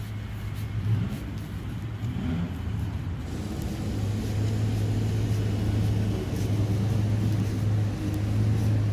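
Road traffic with a steady low engine hum and the noise of tyres on a wet street, growing louder after about three seconds.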